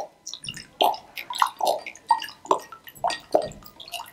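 Vinegar pouring out of a narrow-necked glass bottle into a glass cup, glugging and splashing in a quick irregular run of gulps.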